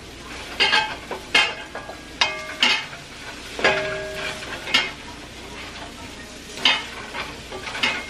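A spatula scraping and knocking in a stainless steel pot and clinking against the rim of a glass bowl as cooked chicken feet are lifted out, with a dozen or so irregular knocks, some ringing briefly.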